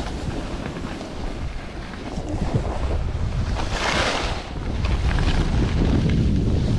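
Wind buffeting a handheld GoPro's microphone while skiing downhill, with a louder hiss of skis scraping across packed snow about four seconds in.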